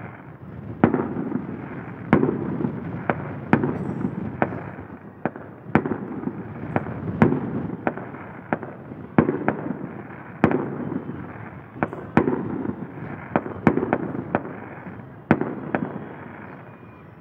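Aerial fireworks bursting in a steady run of sharp bangs, about one or two a second. Each bang trails off in a rumbling echo.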